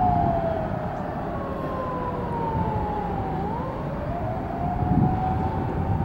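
Police car siren wailing: its pitch sinks slowly for about three seconds, then rises again, over a low rumble.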